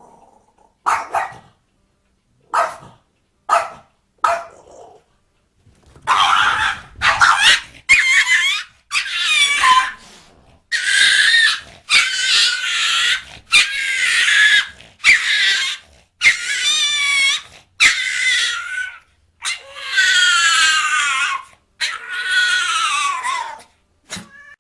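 A dog calling out: four short yelps, then a run of long, high-pitched whining howls about a second each, several sliding down in pitch near the end.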